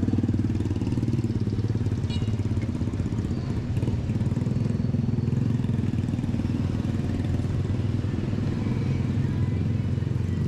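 Small motorcycle engine running steadily with a low, even pulsing hum.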